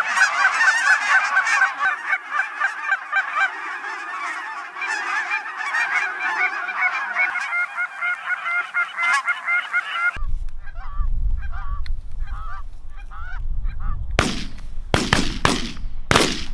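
A large flock of snow geese honking overhead in a dense, continuous chorus. About ten seconds in it gives way to wind rumble on the microphone with scattered honks from fewer geese, then several sharp shotgun shots in quick succession near the end.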